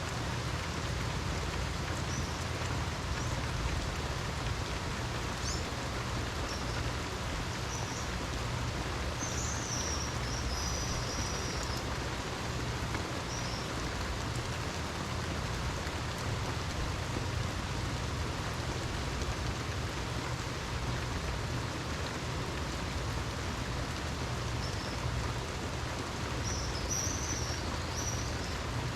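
Steady rain falling, an even hiss with a constant low rumble underneath. A few short high chirps come through around ten seconds in and again near the end.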